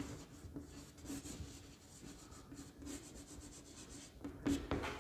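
Chalk writing on a chalkboard: a run of short scratching strokes as words are written, with louder strokes near the end.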